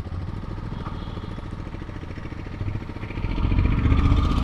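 Motorcycle engine running steadily while being ridden, getting louder about three seconds in.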